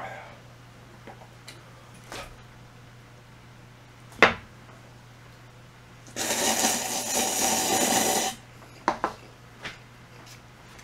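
Close-miked eating sounds: a sharp click about four seconds in, then a loud noisy stretch of about two seconds, followed by a few smaller clicks.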